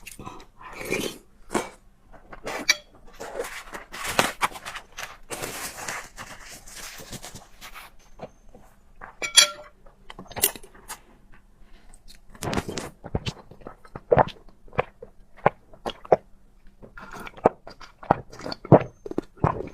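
A person eating noodle soup and fried eggs close to the microphone: wet mouth and eating noises in the first half, then a run of quick, sharp chewing sounds in the second half. A short ringing clink comes about nine seconds in.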